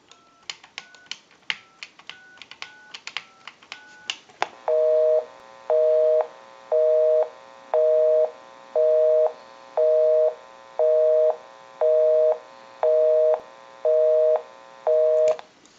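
Telephone push-button keypad dialing a number: a quick run of key clicks, each with a short touch-tone beep. Then a busy signal: a two-tone beep about once a second, eleven times, because the dialed line is busy.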